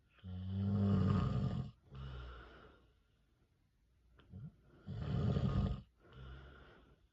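A man snoring in his sleep: two loud snores about four seconds apart, each followed by a shorter, softer breath.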